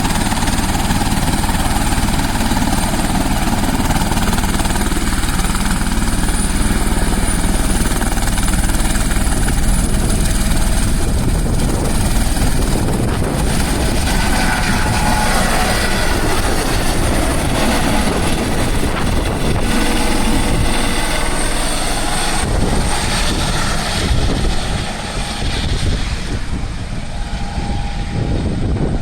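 Helicopter running close by: a loud, steady rotor and engine noise with rapid low chopping and a faint high whine. It eases a little in the last few seconds.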